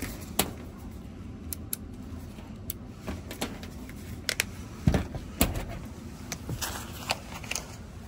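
Scattered sharp clicks and knocks of hand work on HVAC equipment, tools and panel parts being handled, over a steady low hum. The loudest knocks come about five seconds in.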